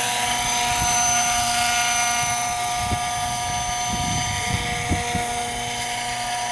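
600-size electric RC model helicopter in flight: a steady electric-motor whine made of several held tones over the rotor noise. It fades a little toward the end, with a few brief low rumbles around the middle.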